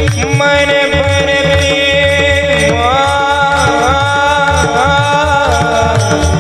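Devotional kirtan music: pakhavaj drum strokes under steady sustained instrumental notes. About two and a half seconds in, a high voice comes in, holding a long note with wavering ornaments.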